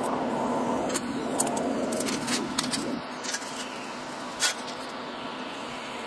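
Small sharp taps and clicks of hand tools on a steel plate being marked out and measured, the loudest about four and a half seconds in. Under them a rushing noise that drops in pitch and fades out about three seconds in.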